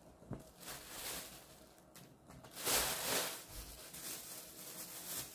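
Rustling and handling noises as small decorations are picked up and moved, in a few bursts with the loudest about three seconds in.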